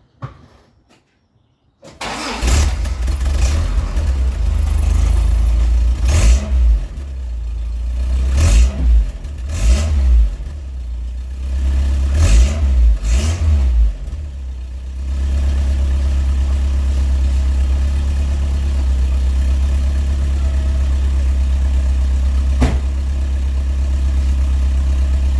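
1985 Toyota 4Runner's 22RE four-cylinder engine cold-started through its stock exhaust: it catches about two seconds in, is blipped up and down in several short revs, then settles into a steady idle, pretty quiet on this exhaust.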